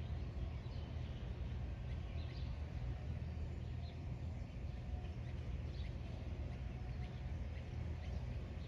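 Outdoor ambience: faint, scattered bird chirps every second or two over a steady low rumble.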